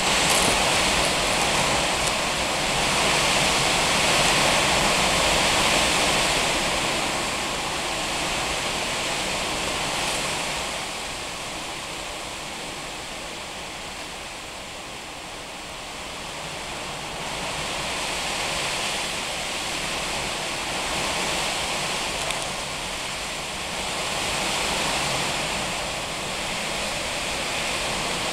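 Strong gusty wind rushing through trees. It swells and eases in long gusts: loud for the first several seconds, dropping to a lull around the middle, then rising again.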